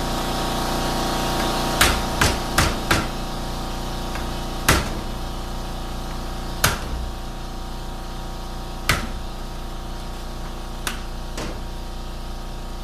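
Hammer tapping a screwdriver against a seal in a 4L60E automatic transmission case to bend it inwards and pry it out: a quick run of four sharp taps about two seconds in, then single taps every two seconds or so, over a steady background hum.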